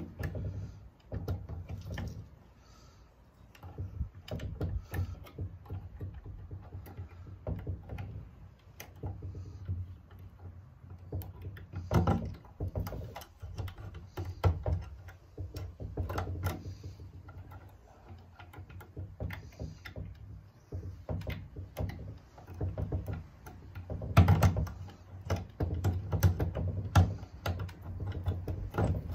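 Lock picks scraping and clicking inside the keyhole of an old cedar chest's seized lock, in irregular small metallic clicks with a few louder knocks.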